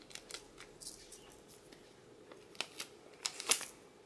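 Faint crinkling and light clicks of small plastic bead packets being handled, with a few sharper clicks near the end.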